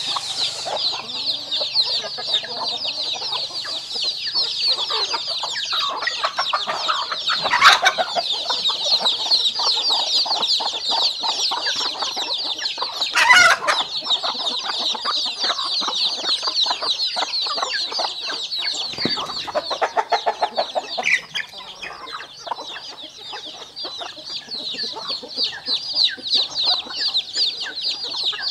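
A flock of chickens feeding: many chicks peeping in a constant, dense, high-pitched chorus, with hens clucking underneath. Two louder calls stand out, about 8 and 13 seconds in.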